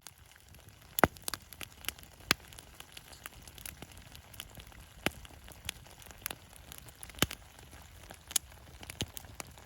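Wood fire crackling, with sharp irregular pops scattered through a faint steady hiss; the loudest pops come about a second in and again a little after two seconds.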